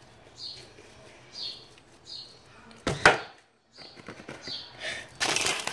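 Handling noise from the recording phone: a single sharp knock about three seconds in as it is set down, and a burst of rustling near the end. Faint short high hisses recur in the background.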